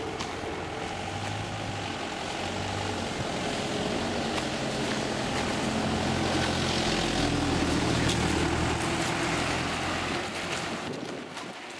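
Engine drone passing by, growing louder to a peak about eight seconds in and then fading away.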